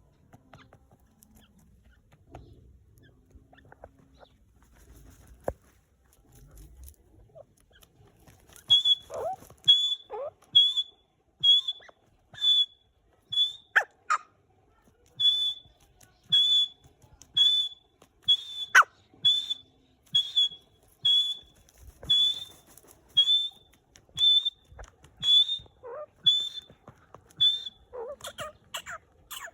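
Francolin (teetar) calling: after a quiet start, a long run of short, high whistled notes about one a second, all at the same pitch, with a few lower calls mixed in.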